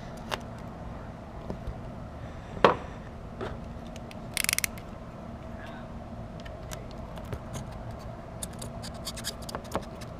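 Hand tools clicking and scraping at the truck's emblems: one sharp knock about two and a half seconds in, a quick rattle of about six clicks around four and a half seconds, and scattered small clicks near the end, over a steady low hum.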